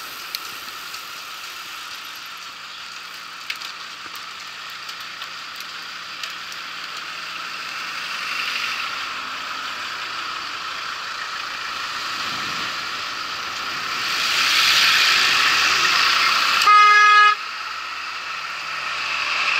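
Steady road and traffic noise heard from a bicycle, swelling as a vehicle passes. About three-quarters of the way in comes a single short horn toot, lasting about half a second, the loudest sound of the stretch.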